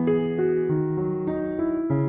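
Background music: a soft electric piano playing sustained chords with a slow-moving bass line.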